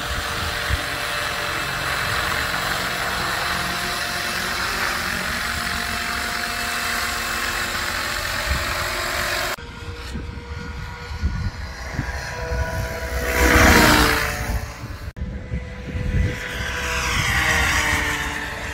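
750-size F3C RC helicopter flying: a steady rotor and drive whine with faint steady tones over low rumble. A little past the middle it sweeps past, swelling loud and fading, with a smaller swell near the end.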